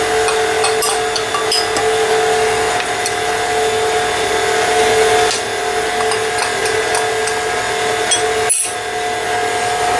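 KitchenAid stand mixer running on its low speed setting, a steady motor whine, with a few light clicks over it. The sound drops out briefly about eight and a half seconds in.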